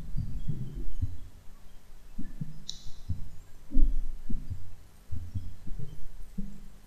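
Irregular low thumps and rumbles picked up by the microphone, with a single sharp click, like a mouse click, about two and a half seconds in.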